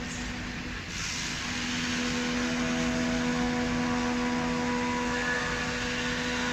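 CNC router running: a steady hum from the spindle motor, with several even tones over a hiss, getting louder about a second in.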